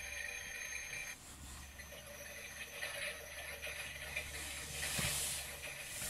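Miele toy washing machine running a wash programme: a steady hissing noise over a low hum, swelling about five seconds in.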